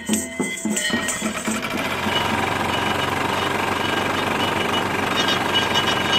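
Music with an even drumbeat fades out in the first second. It gives way to the rapid, steady knocking of an engine-driven sugarcane juice press running.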